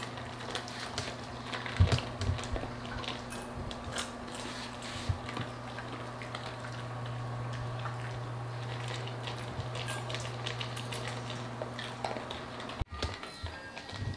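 Small dogs eating dry kibble from metal and plastic bowls: scattered crunching and clicks of kibble against the bowls, over a steady low hum that stops abruptly near the end.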